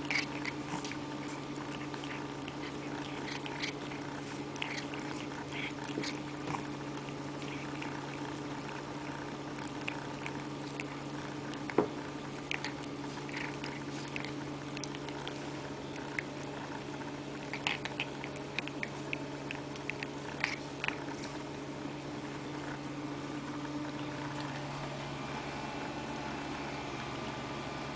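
A cat eating soft bits of macaroni and chicken: small wet chewing and lip-smacking clicks come in scattered runs, heaviest about halfway through. Underneath is a steady low hum.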